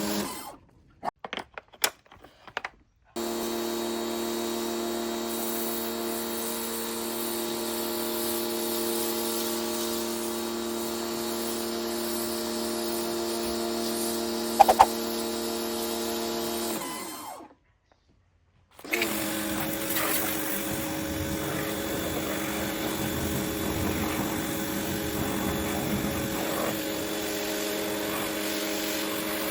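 Parkside PHD 110 G2 pressure washer's electric motor and pump running with a steady hum. It stops twice and starts again, the pitch sagging just before the second stop and rising on the restart. This is the stop-and-start of the motor as the spray-gun trigger is released and pulled again.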